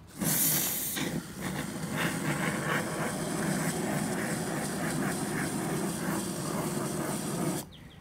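Aerosol can of high-yield polyurethane expanding foam (Sika Boom) spraying through its straw applicator into a drilled hole, a crackly hiss. It opens with a sharp burst of hiss and cuts off suddenly near the end as the trigger is released.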